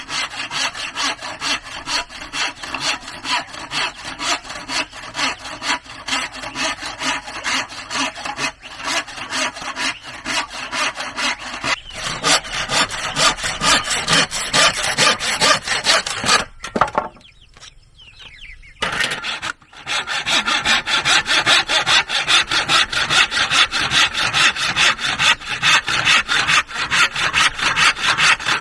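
Hand saw cutting through wood in quick, even back-and-forth strokes. It stops briefly about two-thirds of the way through, then carries on.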